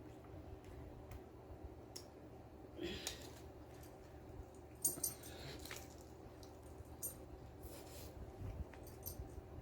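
Close-miked eating sounds: chewing with scattered short, crisp crunches and mouth noises from biting into a hard corn taco shell.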